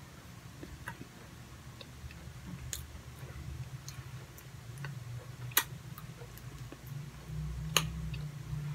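Someone chewing a soft cream-filled donut bar with the mouth closed: scattered small wet mouth clicks, the sharpest about halfway and near the end, over a low steady hum.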